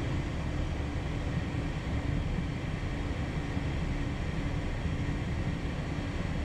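Steady low rumble inside the cockpit of a Phenom 300 business jet taxiing on its idling twin turbofans, with a faint pulsing hum about two or three times a second.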